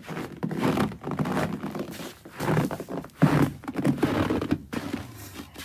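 Close rustling and crinkling, with irregular knocks and scrapes, typical of fabric and the recording phone being handled right at the microphone.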